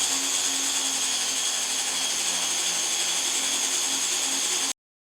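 Power tool running steadily, a loud high hiss with a steady whine in it, cutting off abruptly near the end.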